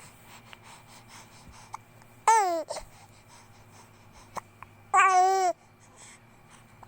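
A two-month-old baby's voice: two short, high-pitched vocal sounds about three seconds apart, the first falling in pitch and the second held level, with faint small sounds between.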